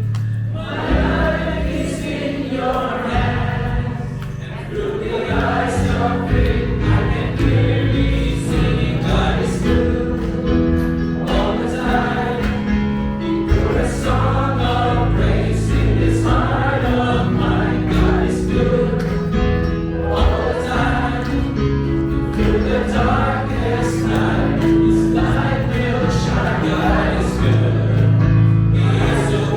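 Gospel-style choir music: several voices singing over long, held low notes and chords.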